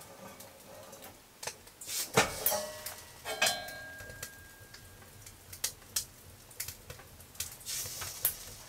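Metal clinks, knocks and scrapes as the Caminus L wood stove's door and air draft control are worked by hand. One strike about three and a half seconds in rings on briefly. Scattered sharp ticks run between them.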